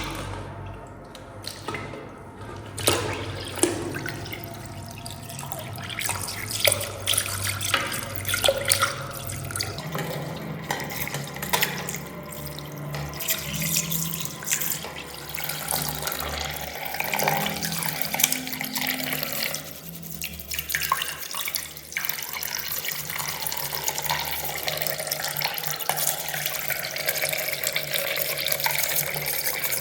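Water running from a tap, with short clicks and knocks of items being handled in it, as in rinsing parts under the faucet.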